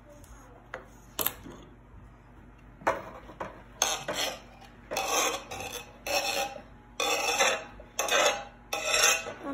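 Chopped cucumber cubes being pushed off a clear cutting board into a glass bowl: a run of short scraping and tumbling strokes, about two a second, starting about three seconds in. A couple of sharp clicks come before it, near the start.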